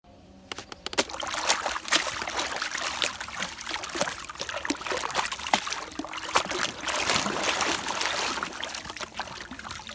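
Pond water splashing and sloshing as a mud-covered toy gun is swished and scrubbed in it by hand: many quick irregular splashes, starting about half a second in.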